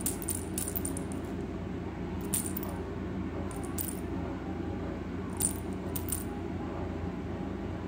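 Irregular sharp clicks and taps of cats' claws and paws striking a hardwood floor as they bat at a plush toy fish, over a steady low hum.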